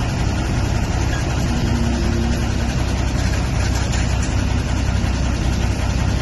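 Vehicle engine running steadily at low speed, heard from inside the cabin as an even low rumble with a noisy hiss over it.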